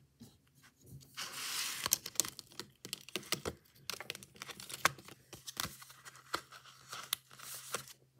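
Plastic retractable gel pens and their clear plastic clamshell tray being handled: a scraping slide of plastic on plastic about a second in, then a run of sharp clicks and taps as a pen is seated in its slot and the pack is moved.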